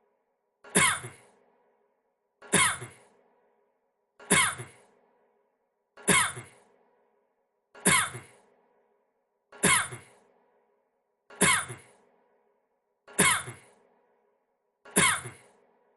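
A man's short cough repeated on a loop, the same cough about every two seconds, nine times.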